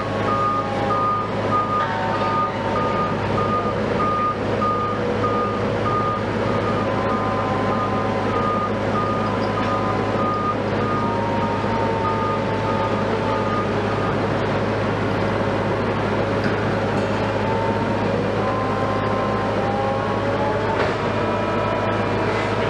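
A heavy site vehicle's reversing alarm beeping steadily, stopping about 14 seconds in, over diesel engines running, their pitch sliding up and down a few times as the machines are worked.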